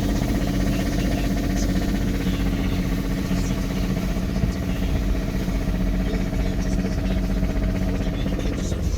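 Toyota MR2's original engine running steadily at about 2,000 rpm while the car is driven, an engine the owner says is knocking. Near the end, one of its tones drops away.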